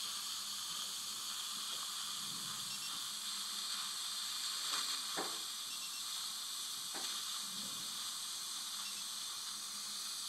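Steady hiss of dental suction drawing air through the NOLA dry-field retractor's saliva ejector, with a few faint clicks about halfway through.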